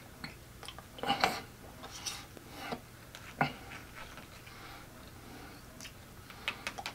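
Handling noises of a plastic sour cream tub with a peeled-back foil lid, squeezed and worked by hand as sour cream is pulled out: short crinkling rustles and sharp clicks in scattered bursts, busiest in the first few seconds and again near the end.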